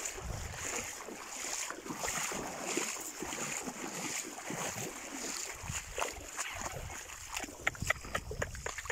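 Footsteps splashing through shallow water as the angler wades backward, with water churning around his legs and the hooked snapper dragged through the shallows. Near the end come a run of short sharp clicks.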